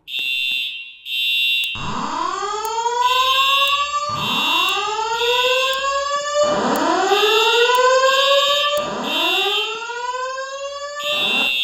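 Building fire alarm system sounding its evacuation signal: four rising whoop tones, each sweeping upward over about two seconds, over a high-pitched beep that pulses on and off. The beeping starts before the whoops and goes on alone after they stop, near the end.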